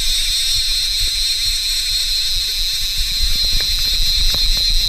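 Wind rumbling on the microphone over a steady high whine on open water, with scattered clicks from about three seconds in as a line-counter trolling reel is handled with a fish on.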